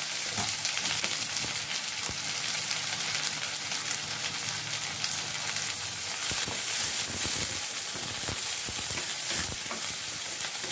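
Freshly added chopped onions sizzling steadily in hot oil in a steel kadai. From about halfway through, a wooden spatula stirs them, adding short scraping clicks against the pan.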